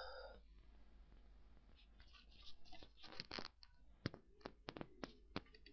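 Near silence, then from about two seconds in a run of faint, separate clicks and brief scratchy rustles, about a dozen in all.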